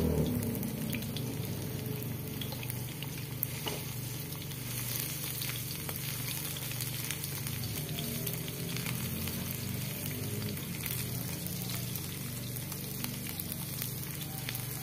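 Sliced shallots sizzling and crackling in hot oil in a wok, stirred with a wooden spatula.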